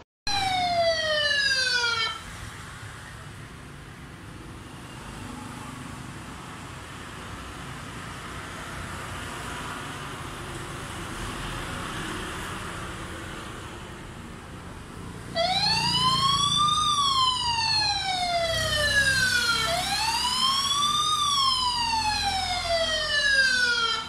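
A CareCam speed-dome IP camera's built-in alarm siren is wailing, triggered by its motion and human detection. A falling sweep opens, then there are about 13 seconds of low room noise. About 15 seconds in, the siren starts again and rises and falls slowly, about once every four seconds.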